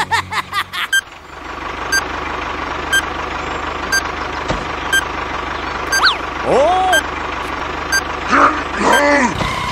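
A steady tractor engine drone runs under a bomb countdown timer beeping once a second. A quick run of cartoon chirps comes at the start, and there are squeaky sliding cartoon sounds about six seconds in and again near the end.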